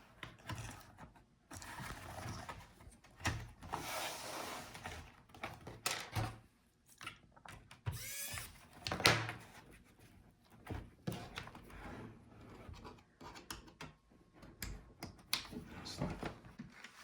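Plastic pry tool scraping along the seam of a laptop's plastic bottom case, with irregular sharp clicks as the case's clips snap loose.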